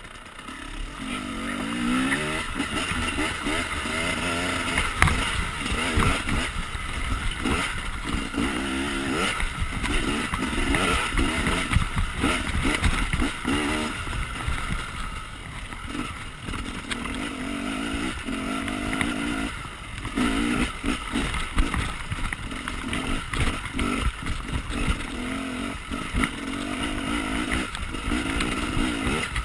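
Husaberg enduro motorcycle engine revving up and down as it is ridden over a rough forest trail, rising in pitch about two seconds in, with frequent knocks and rattles from the bumps.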